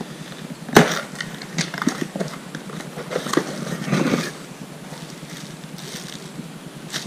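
A package being opened and unwrapped by hand: a sharp snap about a second in, then a run of crackles, rustles and clicks for about three more seconds before it goes quieter.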